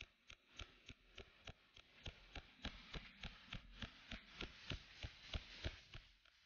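Cold welding machine pulsing as it tacks hand-fed filler wire into a sheet-metal corner seam: a sharp snap about three times a second, each pulse laying one weld spot, over a steady hiss.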